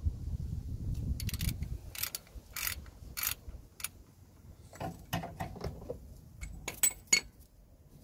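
Ratchet wrench with a 24 mm deep socket clicking in short runs as it is swung back and forth, undoing the reverse light switch in a Nissan Micra K12 gearbox. The clicks come about every half second at first, then in a quicker cluster in the second half.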